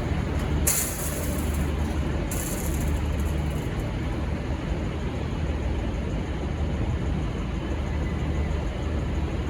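Diesel locomotive running with a steady low drone. Two short bursts of high hiss come within the first few seconds.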